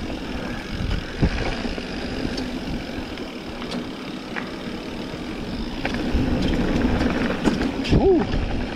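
Mountain bike rolling down a dirt trail: knobby tyres crunching over ground and stones, with clicks and knocks from the bike and wind rush on the helmet camera. A short rising-and-falling squeak comes near the end.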